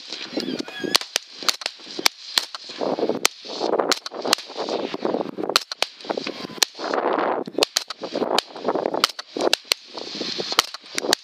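Rapid rifle fire in 7.62x39 from several shooters firing together: around two dozen sharp shots in quick, uneven succession, some close enough to overlap.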